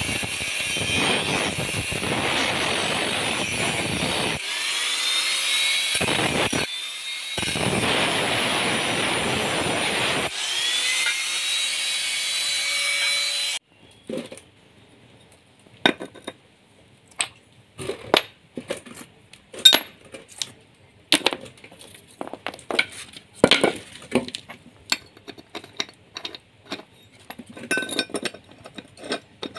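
Electric angle grinder with a cutting disc cutting through metal, its whine rising again a few times as the motor spins back up. About 13 seconds in it stops abruptly, and scattered clinks and taps of small metal pieces handled on a concrete floor and wood follow.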